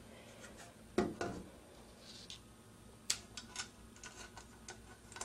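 Faint handling noises of small metal parts as a coaxial cable jumper is fitted onto the antenna's SMA connector: a knock about a second in, then a few light clicks and ticks.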